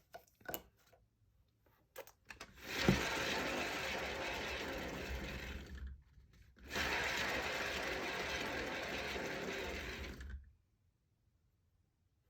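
Hand-spun cake-decorating turntable whirring on its bearings as a canvas is spun for a paint pour, in two spins of a few seconds each, with a few handling clicks before.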